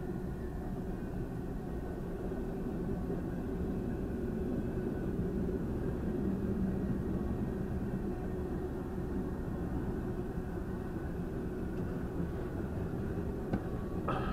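Freight train of tank cars, covered hoppers and boxcars rolling past a grade crossing, a steady low rumble heard from inside a stopped car. A couple of sharp clicks near the end.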